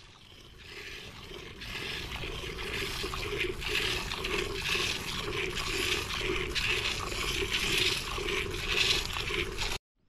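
Hand milking of a cow: alternating jets of milk squirting from the teats into a steel pot, a rhythmic spraying at about two squirts a second. It fades in at the start and cuts off abruptly near the end.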